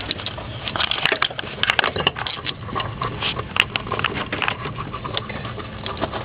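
Irregular plastic clicks, knocks and rattles as a fog-light bulb and its socket are handled and pushed back into the lamp housing.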